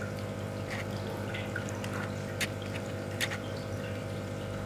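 A steady low hum with a few faint clicks scattered through it.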